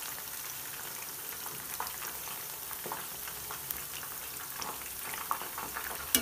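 Cornflour-coated soya chunks deep-frying in hot oil, a steady sizzle with small crackles, stirred with a wire-mesh skimmer. A sharp click sounds near the end.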